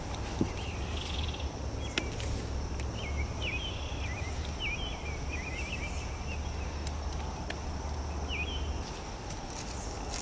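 Birds chirping over a low steady rumble that stops near the end, with a thin steady high buzz and a few light clicks.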